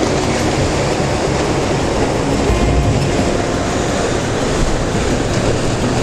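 Loud, steady rush of sea surf breaking on the rocks, mixed with wind rumbling on the microphone.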